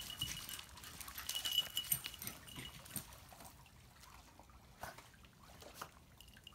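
Small bell on a Shiba Inu's collar jingling as the dog moves, ringing most in the first two seconds, then fading, with a brief jingle again near the end.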